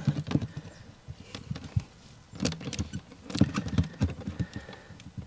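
Hard plastic of a cartridge bilge pump and its mounting base clicking, knocking and scraping as they are handled and pressed together by hand. The sounds come in a few short spells, a sharp click right at the start and the busiest stretch about three to four seconds in.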